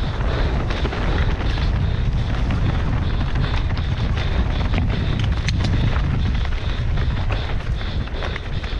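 Wind buffeting the mountain bike camera's microphone as a steady, dense rumble during a fast downhill run, with the tyres crunching over dirt and rock and the bike rattling in frequent short clicks and knocks.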